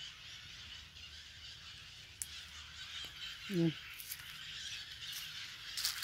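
Steady outdoor background hiss with one short, low, honk-like call a little past halfway and a few faint clicks.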